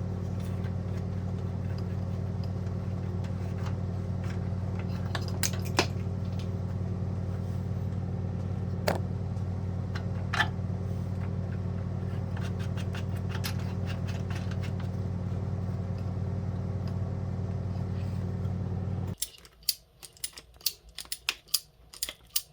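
A steady low mechanical hum with a few sharp metallic clicks from conduit fittings being handled and fitted. The hum cuts off suddenly near the end, and a quick run of clicks and taps follows.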